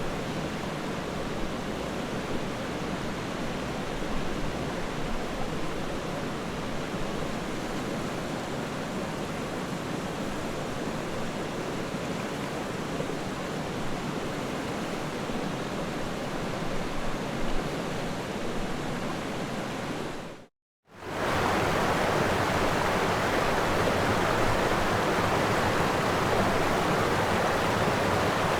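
Floodwater rushing, a steady noise without pitch. It cuts out for a moment about two-thirds of the way through and comes back louder.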